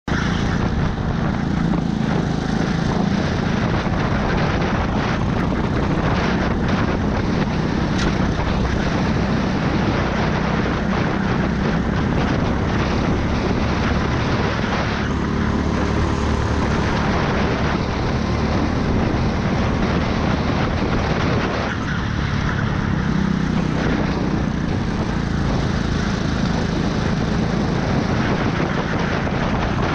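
Go-kart engine running at racing speed, under a steady rush of wind and track noise.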